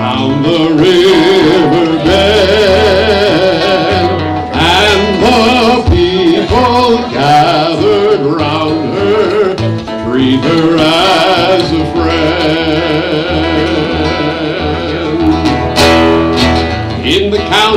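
A man singing with his own acoustic guitar accompaniment, his voice wavering in pitch on held notes.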